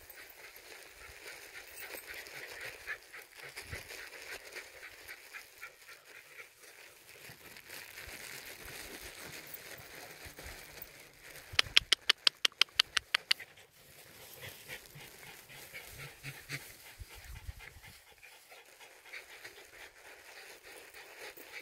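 Japanese Spitz dogs panting steadily. About halfway through comes a quick run of about ten short, sharp sounds, the loudest part.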